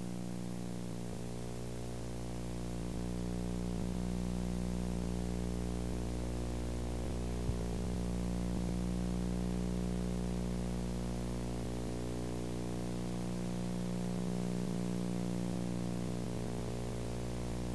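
Steady electrical mains hum with a stack of overtones under a tape hiss, with one small click about halfway through. The recording's own sound has dropped out on the old videotape.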